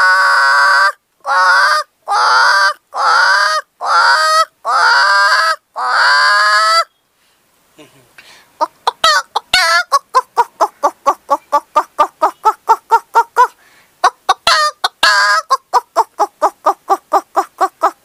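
A woman imitating chickens with her voice: six long, loud drawn-out calls, then, after a short pause, a long run of rapid clucking at about three to four clucks a second, broken briefly once.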